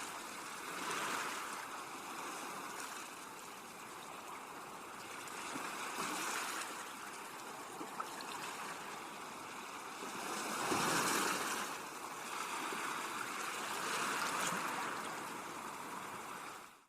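Sea waves washing onto a beach, swelling and ebbing every few seconds, the biggest surge about eleven seconds in.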